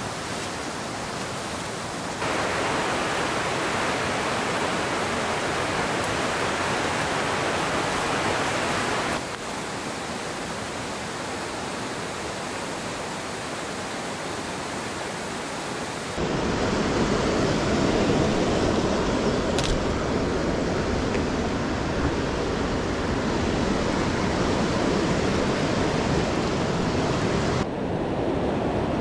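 Steady rush of a fast mountain river tumbling over rocks and through whitewater riffles. Its tone and loudness change abruptly four times, and it is loudest and deepest in the second half.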